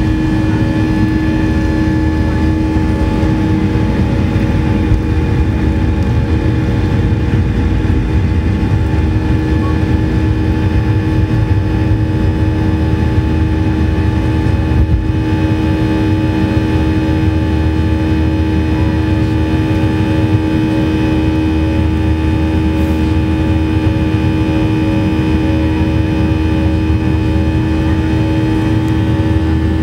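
The IAE V2500 turbofan of an MD-90 at takeoff thrust during the climb-out, heard inside the cabin right beside the rear-mounted engine. It runs loud and steady: a deep rumble under a hum and several high, steady whining tones.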